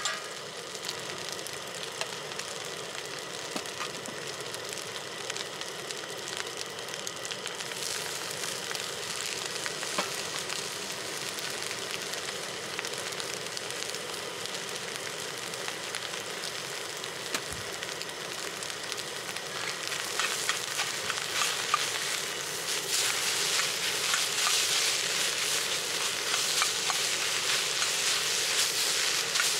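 Egg fried rice sizzling in a wok over a gas camp stove, the ladle clicking and scraping against the wok as the rice is stirred and tossed. The sizzle grows louder and more crackly in the last third.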